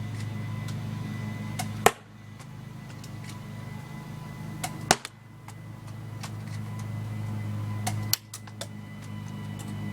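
UTG 1911 full-metal spring airsoft pistol firing three shots about three seconds apart, each a sharp snap with a fainter click close beside it, over a steady low hum.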